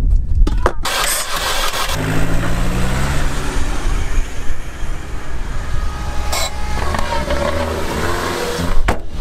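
Opel Corsa engine catching after cranking and running on, its revs falling over a second or two after it fires and then holding steady. The engine has lost much of its compression, which the owners put down to piston rings burnt by the extra oxygen.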